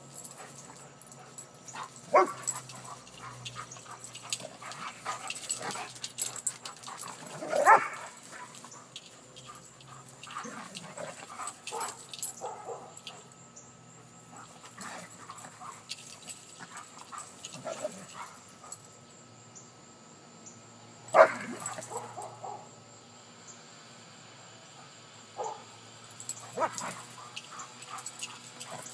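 Two Airedale terriers playing, barking in short scattered outbursts, the loudest about eight seconds in and about twenty-one seconds in.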